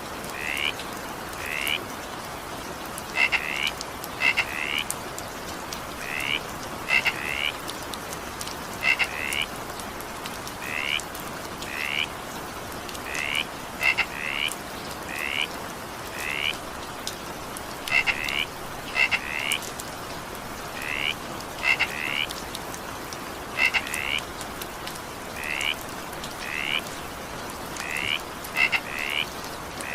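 Frogs calling over steady rain: short chirping croaks, often in quick pairs, about once a second, over an even hiss of falling rain.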